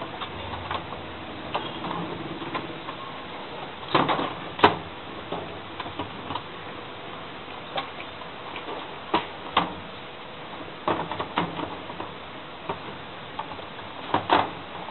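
Irregular clicks and knocks of washing-machine parts being handled and fitted together during reassembly, with a few louder knocks in pairs.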